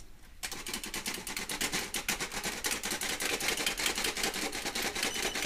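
Squeeze-handle metal flour sifter being worked over a pot, its handle and blade giving a rapid, even clicking that starts about half a second in, as flour is sifted in.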